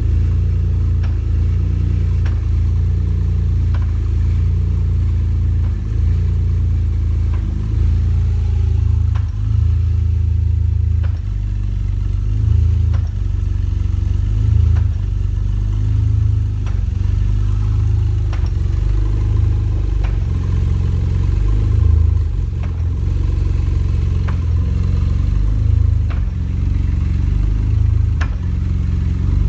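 A BMW E46 330xi with a recurring knock: short sharp knocks come every second or two, unevenly spaced, over the car's steady low rumble.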